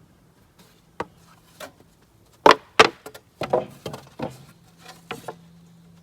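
Pieces of cedar being handled: a run of irregular wooden knocks and clacks, the loudest two close together about two and a half seconds in.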